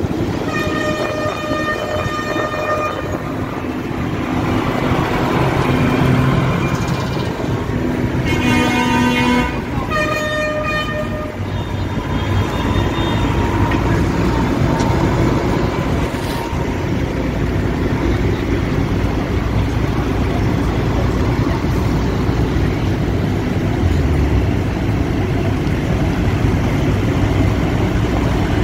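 Vehicle horns honking in a convoy of farm tractors: a long blast near the start, two more about eight and ten seconds in, and a fainter one after that. Underneath and afterwards, the steady sound of tractor engines running as they pass.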